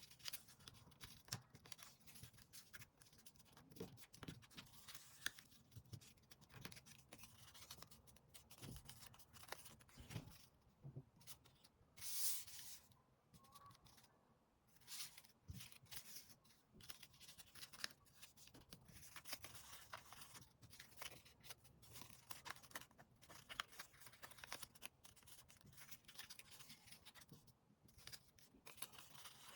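Sheets of paper being handled and folded by hand: soft, irregular rustles and creasing scrapes, with one louder rustling swish about twelve seconds in.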